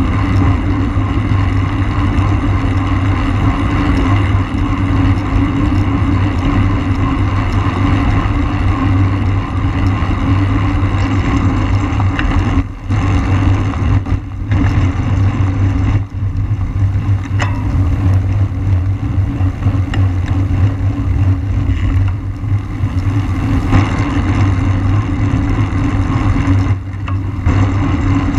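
Steady rush of wind and tyre noise on a camera riding along on a road bike at racing speed, dipping briefly a few times.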